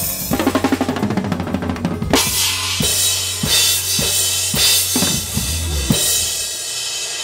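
Drum kit played with sticks: a fast fill of rapid, even strokes on the drums for about two seconds, then a string of accented hits about half a second apart, each with a Paiste crash cymbal ringing out. A steady low hum sits under it and stops about six seconds in.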